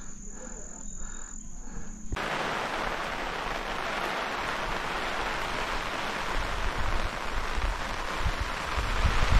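An insect's steady high trill for about two seconds, then an abrupt switch to a steady rushing hiss of wind on the GoPro's microphone, with low buffeting gusts growing near the end.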